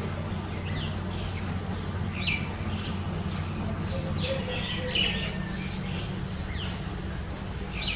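Small birds chirping: short high chirps, each sweeping down in pitch, come every second or so, over a steady low hum.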